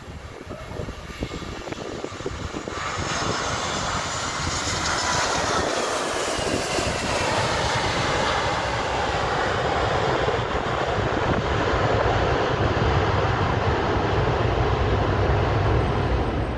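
Jet engines of a Spirit Airlines Airbus A320-family airliner landing: the sound comes up sharply about three seconds in as the jet passes close, stays loud through touchdown and the landing roll, and cuts off suddenly near the end.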